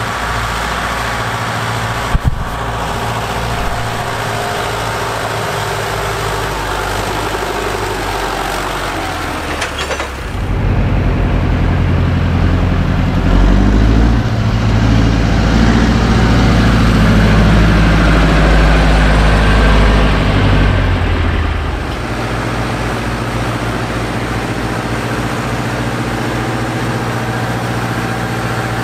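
Diesel engines of Fortschritt ZT tractors clearing snow. At first a steady engine sound. From about ten seconds in the engine is louder and works hard, its pitch rising and falling as the tractor pushes snow with its blade. In the last few seconds it settles back to a quieter, steady running.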